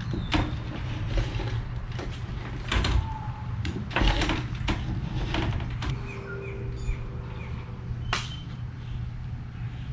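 Rubber spline being pressed into a screen frame's channel with a spline roller tool: irregular clicks, knocks and light creaks, over a steady low hum.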